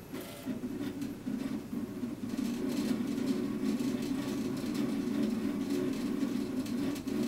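RepRap 3D printer's stepper motors buzzing as its axes move the print head back and forth, following a waving hand. The buzz steps up in loudness about two seconds in, with light ticks and rattles from the frame.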